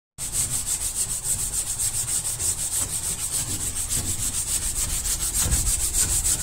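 Fast back-and-forth scrubbing on a fibreglass floor with a scrubber in a rubber-gloved hand, an even run of hissing strokes several times a second, as the surface is cleaned with bleach.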